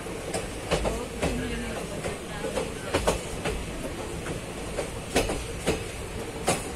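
A train running along the track, heard from aboard: a steady rumble with irregular clicks and knocks from the wheels on the rails.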